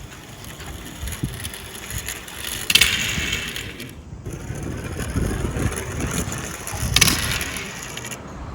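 Die-cast Tomica minicars rolling down a toy slope with a steady rumble and rattle. There are two louder clattering bursts, about three seconds in and again about seven seconds in.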